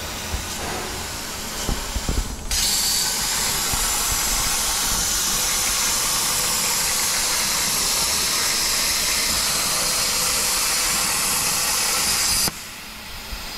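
Plasma cutter torch on a CNC plasma table cutting thin stainless steel sheet: after a few clicks, a steady hiss of the arc and air jet starts about two and a half seconds in and cuts off suddenly about a second before the end.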